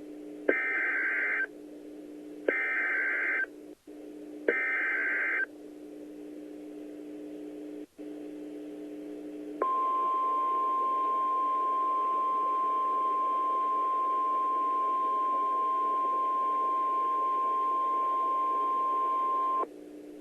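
Emergency Alert System header from a weather-radio broadcast. Three one-second bursts of warbling digital data tones come about two seconds apart, then a few seconds of steady low hum and hiss. Then the single high 1050 Hz warning alarm tone holds for about ten seconds: the signal that a new warning is starting.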